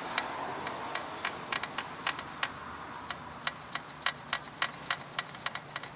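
Light, irregular clicks and ticks, a few a second, of a thin paper clip being run up and down the main jet of a Husqvarna ST224 snowblower carburetor to clear it out, a fix for the engine's surging.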